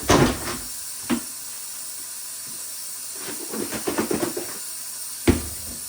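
A steady hiss with a few knocks and light clatter from kitchen things being handled. The loudest knock comes about five seconds in.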